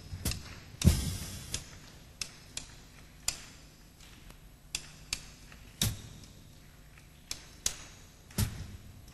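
Sparse, irregularly spaced single percussion strokes, about a dozen sharp hits with quiet gaps between them. The loudest, about a second in, rings on briefly.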